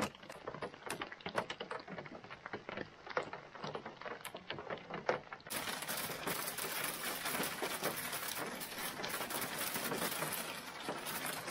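Hail and rain striking a canoe hull overhead as scattered sharp taps over a steady hiss. About halfway through, this gives way to a denser, louder downpour with many close hits.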